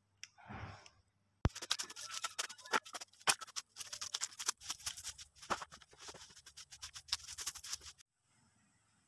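Footsteps in rubber boots crunching through dry bamboo leaf litter: a brief rustle, then several seconds of dense, irregular crackling that stops abruptly.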